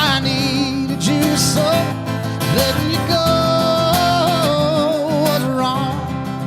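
Live country music: a singer holding long, wavering notes without words over acoustic guitar and a backing band.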